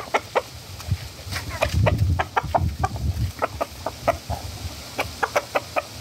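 Rooster clucking in a run of short, irregular clucks, with a low rumble under them from about one and a half to three and a half seconds in.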